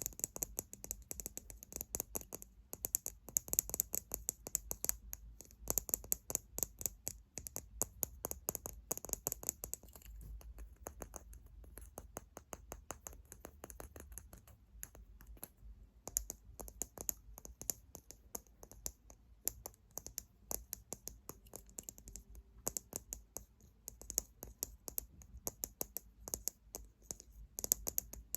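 Fingernails tapping quickly on objects: a fast, continuous run of sharp clicks, somewhat quieter through the middle stretch.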